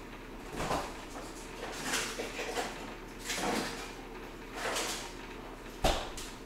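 Household handling noises: a series of short rustles and shuffles, then a sharp knock about six seconds in, over a steady low hum.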